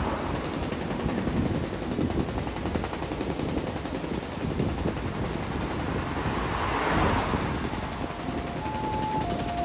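Toyota HiAce ambulance idling, a steady noisy rumble with wind on the microphone. Near the end its two-tone siren starts, a higher note then a lower one.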